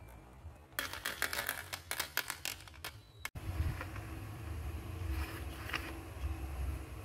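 Marbles rolling down clear plastic tubing and dropping into a toy dump truck's plastic bed: a quick, dense clatter of clicks. After a break about three seconds in, a steady low rumble and scraping with a few clicks as the toy truck is moved by hand.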